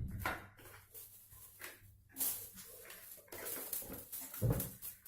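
Shoe-rack parts being handled and fitted together: irregular clicks, rustles and knocks, with a heavier knock about four and a half seconds in.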